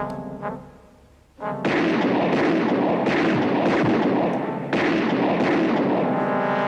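Rapid gunfire in two long bursts, the first starting about a second and a half in and the second near five seconds, over dramatic music.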